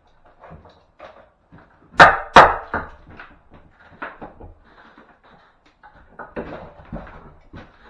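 Hand-tool knocking and scraping on the timber and old plaster under a window frame, with two loud knocks about half a second apart around two seconds in and lighter taps throughout.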